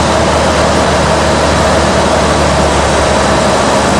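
Cirrus SR20 single-engine piston aircraft's engine and propeller droning steadily, heard from inside the cabin on a landing approach.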